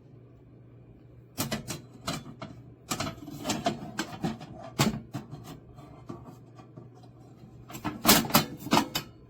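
Runs of rapid sharp clicks and knocks, like small hard objects being handled, in three bursts: about a second and a half in, from three to five seconds, and loudest around eight seconds. A low steady hum runs underneath.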